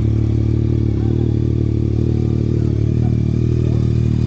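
Sport-touring motorcycle engine idling steadily, just after being started.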